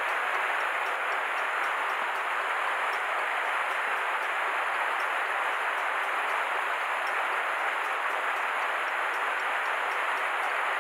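Steady rush of flowing river water over a riffle, unbroken and even in level.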